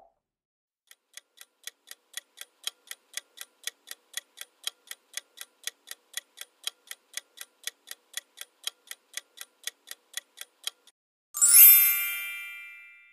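Countdown-timer clock ticking, about four ticks a second, fading in and running for about ten seconds. Near the end a bright chime rings and dies away, marking that the answer time is up.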